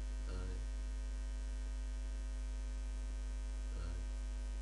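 Steady electrical mains hum in the recording: a deep, unbroken drone with a thin buzz of higher overtones above it.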